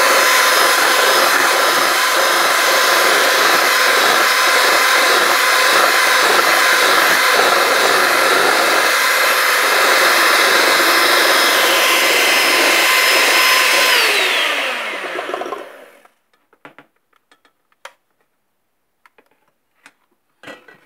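Electric hand mixer running steadily, its beaters whipping instant coffee, sugar and warm water into dalgona foam. About 14 seconds in it is switched off and its whine falls in pitch as the motor spins down, followed by a few faint clicks.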